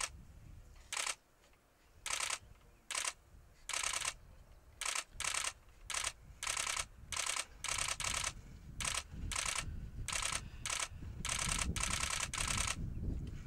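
African desert elephant rubbing its head and trunk against a tree trunk: a series of short, sharp rasps of hide and tusk scraping on bark, about two a second, running closer together near the end.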